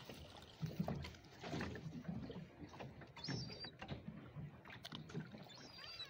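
Water lapping and sloshing against the side of a small fishing boat in uneven low swells with soft knocks. A brief, faint high bird call comes a little past halfway.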